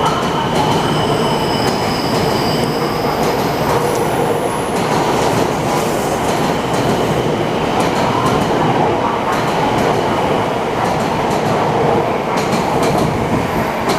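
JR West 700 series 3000 Shinkansen train pulling out, its cars rolling past with a steady rumble. Thin, high wheel squeals come in the first few seconds, and a run of clicks comes near the end.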